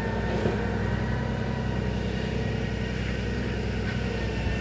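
An engine running steadily: a continuous low drone with an unchanging pitch and no revving.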